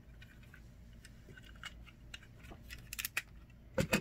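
Small plastic Lego bricks clicking against one another as loose pieces are picked through by hand. Scattered light clicks, a quick run of them about three seconds in, and two sharper clicks close together near the end.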